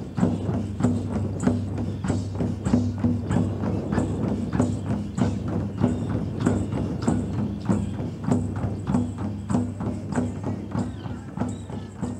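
Several hand-held frame drums beaten together in a steady, even beat of about three strikes a second, over a low steady drone.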